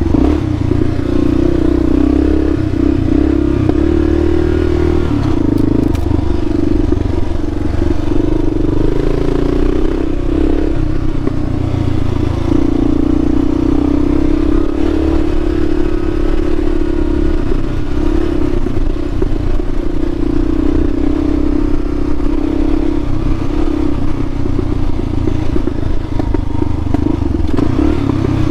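Kawasaki KLR650's single-cylinder engine running steadily while riding a dirt trail, its pitch wavering a little with the throttle, along with clattering from the bike over the rough, rocky surface.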